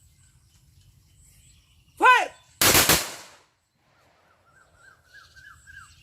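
A shouted drill command, then a ragged volley of rifle shots fired almost together as a ceremonial gun salute, with a brief ringing tail.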